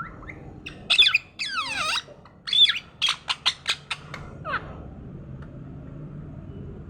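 Parrot squawking in a burst of calls: a long call that slides downward in pitch, then a quick run of short, sharp calls, ending with one falling call.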